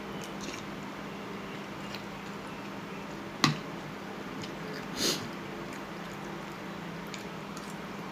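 A person eating a bowl of boat noodles, with quiet chewing over a steady low hum. There is one sharp click about three and a half seconds in and a brief noisy burst around five seconds.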